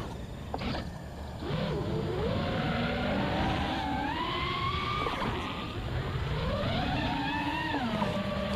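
Whine of an FPV quadcopter's brushless motors and folding propellers, its pitch following the throttle. The motors drop low and quiet at the start during a flip, spool back up about a second and a half in, then climb and fall in pitch several times.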